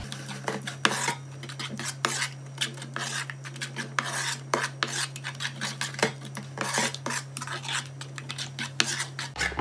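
Metal spoon stirring a thick cream, coconut and Nutella mixture in a bowl: repeated irregular scrapes and clicks of the spoon against the bowl.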